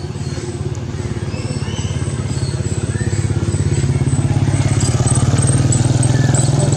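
An engine running steadily with a fast pulsing hum that grows louder about halfway through.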